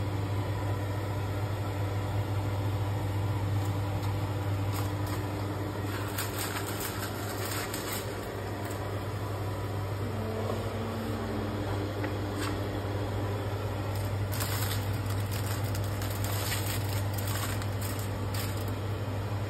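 Metal tongs and a spatula clicking and scraping on aluminium foil and an oven rack in two short spells, as barbecued ribs are lifted out of the foil. A steady low hum runs underneath.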